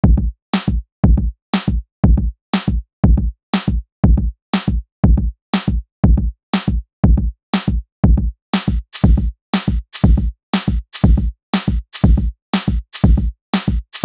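Electronic drum-machine beat of intro music: a kick drum about twice a second with a sharp snare or clap once a second. From about eight and a half seconds in, a hissing layer joins the beat.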